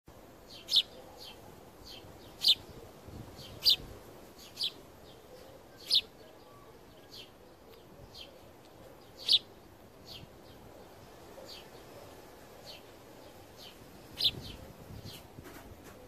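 House sparrows chirping: short, single sharp chirps every second or two, seven of them loud, with fainter ones between.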